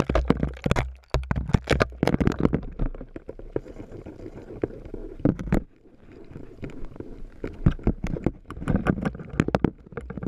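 Irregular clicks, knocks and scraping over a low rumble from an ice-fishing tip-up's metal spool and wooden shaft turning as a fish takes line. The clicks are thickest at the start and again near the end.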